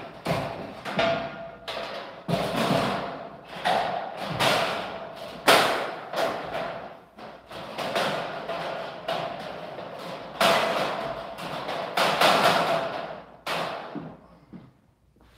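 Light-gauge steel studs being knocked and shoved into their metal track: a string of irregular metallic knocks and rattles, some ringing briefly, dying down near the end.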